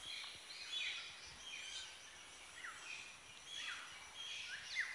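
Jungle birds calling, several at once: short chirps and down-slurred calls repeating about every half second to a second.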